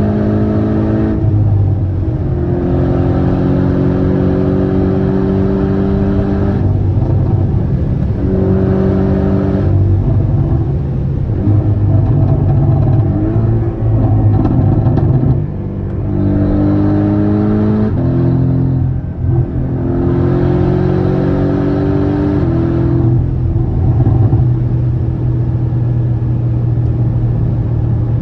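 Porsche 718 Cayman's turbocharged flat-four, Stage 2 remapped with a stainless exhaust, pulling hard again and again: the engine note climbs for a few seconds, drops off and climbs again, about six times, over a steady low drone.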